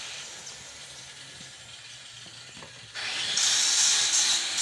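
Faint metallic clicks of a truck gearbox's gears and shafts being handled. About three seconds in, a loud steady hiss cuts in suddenly.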